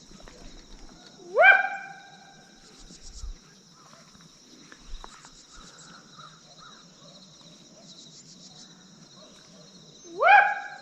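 Hunting dog giving two sharp barks about nine seconds apart, each sweeping quickly up in pitch and then holding briefly.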